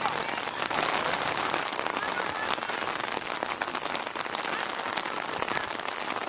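Steady rain falling and pattering on surfaces close to the microphone, a dense hiss of many small drops.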